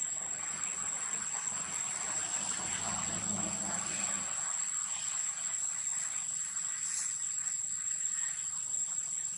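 Insects droning in one steady, unbroken high-pitched tone.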